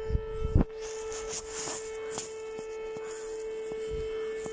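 Civil defence siren sounding one steady, unwavering tone, with a sharp knock about half a second in.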